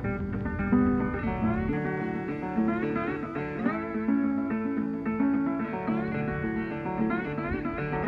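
Background guitar music, with plucked notes.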